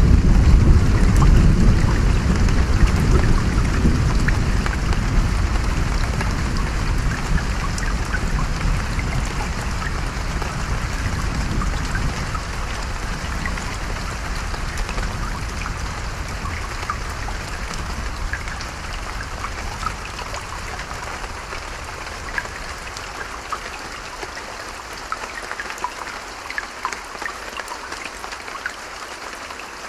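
A long roll of distant thunder that slowly fades out over the first half, over steady rain patter and running stream water with scattered drips.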